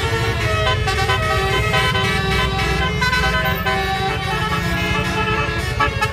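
A bus's klakson telolet, a multi-tone musical air horn, playing a tune in short stepped notes over the low rumble of the running bus.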